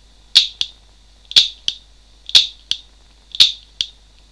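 KJW M92 gas blowback airsoft pistol dry-fired four times, about once a second, each shot a sharp metallic click followed by a lighter click, heard through an electronic hearing-protection headset's microphones at full volume. A faint steady high-pitched hiss lies underneath.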